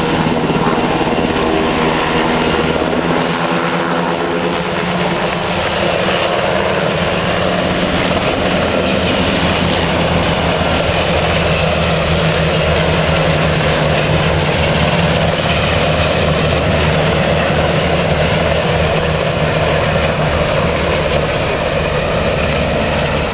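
Sikorsky UH-60 Black Hawk helicopter flying past, its rotors and twin turboshaft engines running loud and steady.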